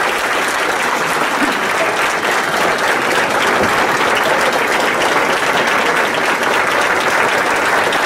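Indoor audience applauding steadily, a room full of people clapping at the end of a song.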